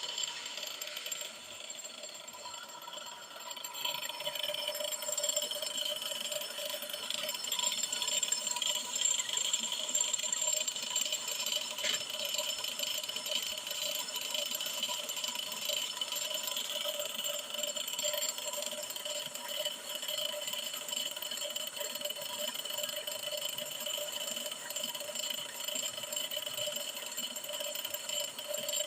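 Brake lathe resurfacing a Hyundai Getz brake drum: the drum spins while the cutting tool machines its braking surface, making a steady metallic whine with several held pitches. It drops lower for a couple of seconds near the start, then carries on evenly.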